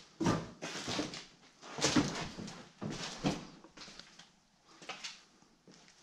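Footsteps and scuffs among boxes and loose paper on a hard floor, with rustling and a few heavier knocks about a second apart, loudest about two seconds in, then softer ticks near the end.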